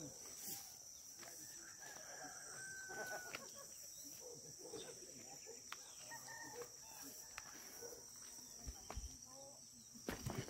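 Faint outdoor ambience: a steady high-pitched insect drone, with a rooster crowing in the distance and a few soft bumps near the end.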